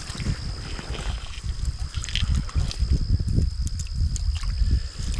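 Creek water sloshing and splashing close to the microphone in irregular low thumps, with a faint steady high-pitched whine underneath.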